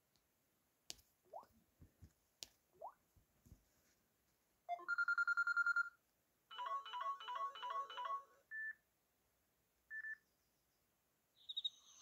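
A Samsung Galaxy S3 Mini's loudspeaker plays short previews of its built-in ringtones one after another as entries in the ringtone list are tapped. There is a steady pulsing bell tone, then a fast run of repeated beeps, two single short beeps, and near the end the start of a birdsong ringtone. Faint finger taps and clicks come first.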